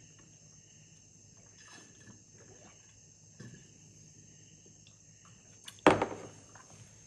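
Quiet sips of a drink through a straw from a glass mason jar, then a sudden loud knock near the end as the jar is set down on the table.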